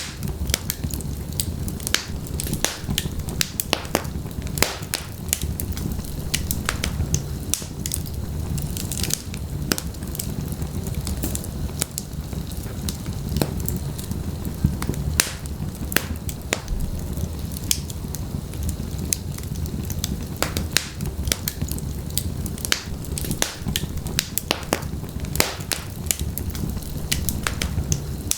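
Wood fire burning in a fireplace: many sharp crackles and pops, irregular and close together, over a steady low rumble of flames.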